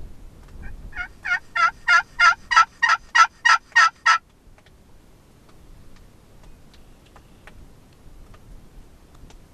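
Glass friction turkey call (pot call) worked with a striker: a run of about eleven yelps, roughly three a second over three seconds, imitating a hen turkey.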